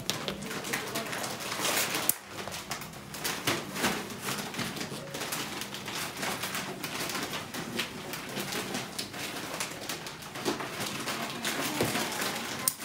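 Irregular run of small clicks, taps and rubbing as warm candy is worked by hand and with tools on a metal candy-making table.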